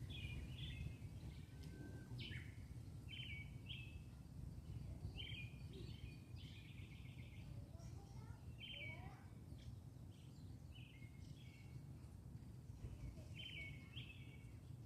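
Small birds chirping faintly, short high chirps often in pairs every second or two, over a steady low outdoor rumble.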